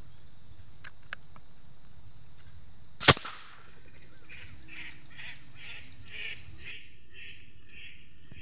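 A single sharp airgun shot about three seconds in, followed by a bird calling over and over, about two calls a second.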